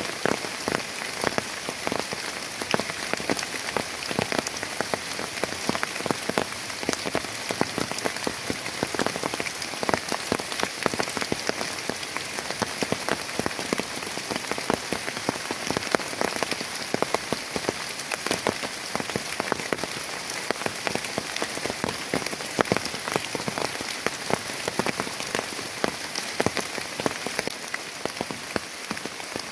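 Heavy rain falling steadily on a hard surface, a dense run of sharp drop impacts over a constant hiss.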